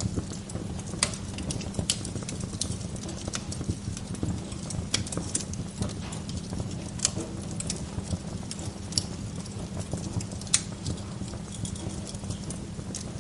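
Wood fire crackling, with irregular sharp pops and snaps over a steady low rumble, and one louder pop about ten seconds in.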